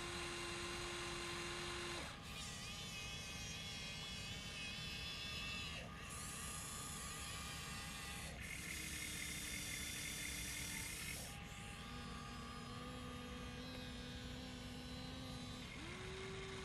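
Huina RC excavator's small electric motors whining as the boom, arm and bucket dig and load sand. The whine holds one steady pitch, then jumps to a new pitch every few seconds as a different function takes over.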